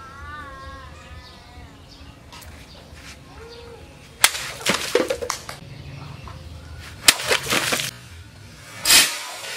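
A sword forged from a motorcycle disc brake rotor slicing through water-filled plastic bottles. A sharp cut comes about four seconds in, followed by water splashing, and a second cut and splash follow about three seconds later. Birds call at the start.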